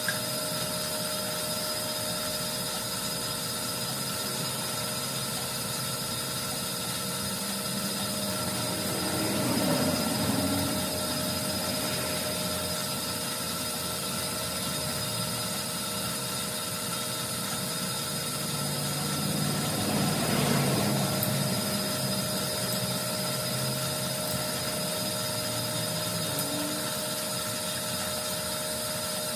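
Electric motor on an engine test stand belt-driving a Harley-Davidson Shovelhead V-twin, turning the engine over without it firing. It makes a steady whine over a low hum, swelling louder twice, about ten and twenty seconds in.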